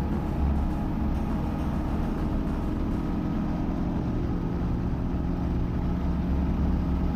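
Guimbal Cabri G2 helicopter's four-cylinder Lycoming piston engine and rotors running steadily, heard inside the cockpit as a low, even drone while the helicopter lifts into a hover to taxi.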